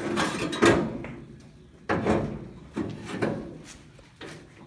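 Four sharp knocks and clunks about a second apart, each fading quickly.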